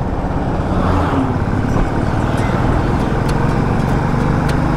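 Motorcycle engine running steadily while riding, with wind rushing over the microphone; an oncoming bus passes about a second in.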